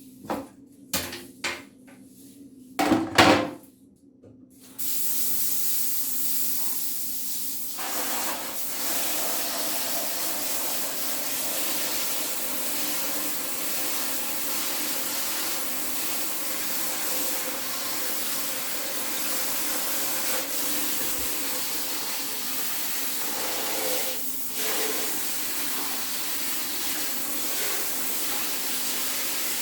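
A few sharp knocks and clatters, then a steady spraying hiss starts about five seconds in and runs on without a break, typical of spraying keyboard parts clean.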